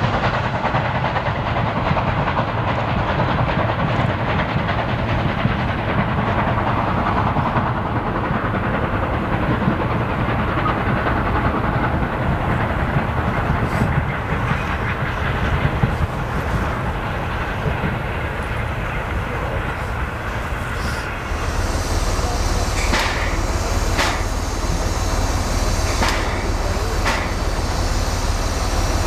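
A passenger train hauled by the LV-class steam locomotive LV-0522 runs past, its coaches' wheels clattering over the rail joints under a steady steam rush as it draws away. After a sudden change about two-thirds of the way in, the locomotive is close by and moving slowly, with sharp separate exhaust chuffs coming roughly a second apart.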